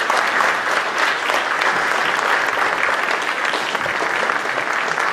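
Large audience applauding: many hands clapping in a dense, steady patter.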